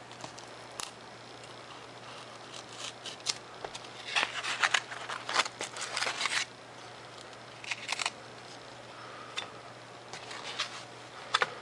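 Craft knife blade slicing through thin Depron foam sheet in short scratchy strokes, heaviest in a run of strokes a third of the way in and again near two-thirds.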